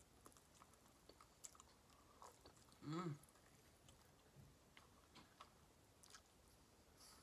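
Faint chewing and biting on a fried barbecue rib: small mouth clicks scattered throughout, with a short hummed 'mm' about three seconds in.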